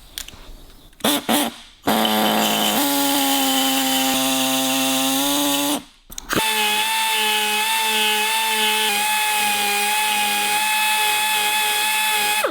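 High-speed handheld power tool cutting into the brazed steel joint of a motorcycle fork brace, giving a steady whine whose pitch settles slightly lower as it bites. It runs for about four seconds, stops briefly, then starts again and runs on steadily.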